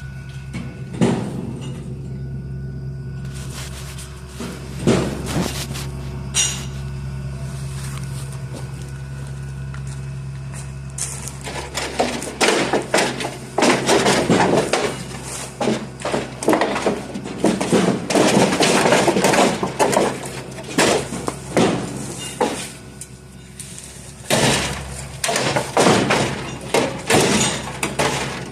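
Hand demolition: scattered knocks and cracks, then a long stretch of dense crashing and breaking as material is torn down, over a steady low hum in the first half.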